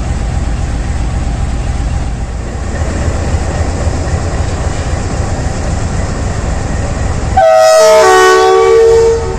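Pakistan Railways RGE-20 diesel locomotive idling with a steady low chugging. Near the end its horn blows loudly for a little under two seconds, starting on a higher note and then holding a lower one.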